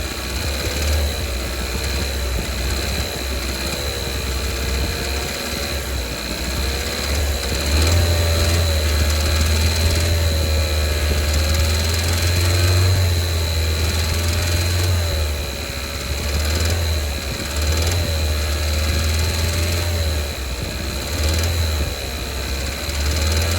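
2019 Kia Soul's 1.6L GDI four-cylinder engine revved up and down several times, with a ticking noise that grows more pronounced as rpm rises toward 3,000. The owner takes it for rod knock, possibly in cylinder 3.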